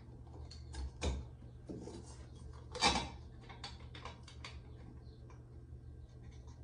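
Scattered clicks, taps and short scrapes of a metal shower valve trim plate and its mounting screw being handled against a tiled wall while the screw is worked toward a hidden hole, with one louder clack about three seconds in.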